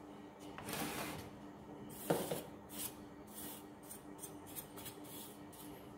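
A dry paintbrush sweeping dust off the insides of an opened laser printer in a series of short, scratchy strokes, with one louder knock about two seconds in.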